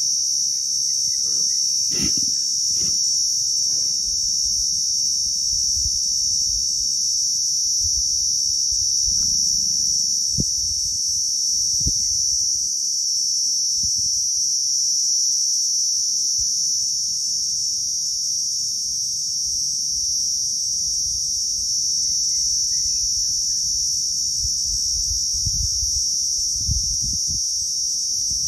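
Steady, high-pitched insect chorus droning without a break, over a low rumble, with a few short knocks and faint chirps.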